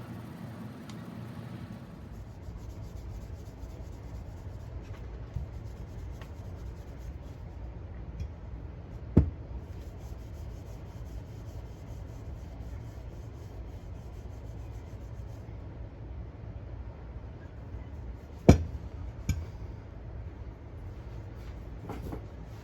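Steady rubbing of a cloth or pad polishing a metal coin bank. Three sharp knocks break it: one about nine seconds in and two close together a little past eighteen seconds.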